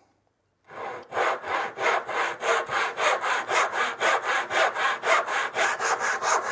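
Hand backsaw crosscutting a wooden board, starting its cut in a knife-and-chisel notch that guides the blade into its kerf. The sawing starts about two-thirds of a second in and goes on in quick, even strokes, several a second.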